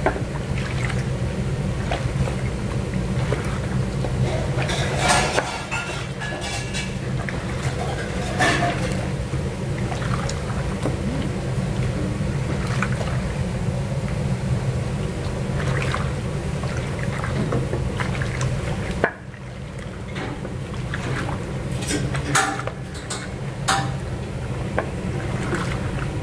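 Wet chicken pieces squelching and scraping as a large batch is turned in a big pot with a wooden paddle, over a steady low hum. The sound dips briefly about three-quarters of the way through.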